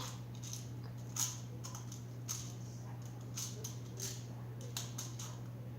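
Scattered small clicks and taps of candies and a plastic candy dispenser being handled, over a steady low hum.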